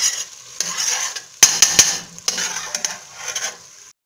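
Metal spoon stirring and scraping onions, peppers and tomato paste sautéing in a stainless steel pot, in about five strokes, with a few sharp clinks of the spoon against the pot about a second and a half in. The sound cuts off suddenly near the end.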